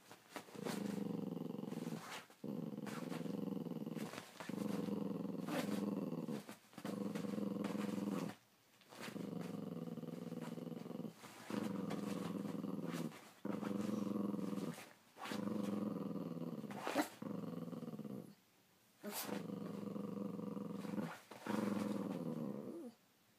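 Small dog growling over and over, about ten long growls, each lasting a breath with short gaps between.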